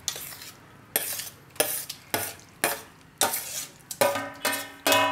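Steel spoon scraping and tapping against a stainless steel plate held over a steel bowl as mashed roasted eggplant is scraped off it: about nine sharp scrapes and knocks, roughly two a second, the last few leaving the steel ringing.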